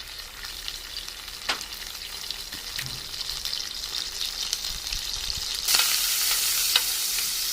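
Oil and butter sizzling as they heat in a pan, with a few light clicks. About three-quarters of the way through, the sizzle turns sharply louder.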